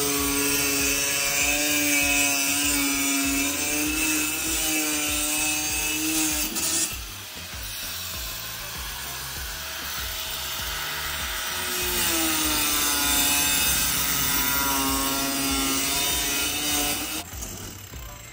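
Handheld electric power cutter cutting through a wall-board panel: a loud motor whine with a hiss, wavering slightly in pitch. It makes two long cuts, with a quieter pause of about five seconds in the middle, and stops shortly before the end.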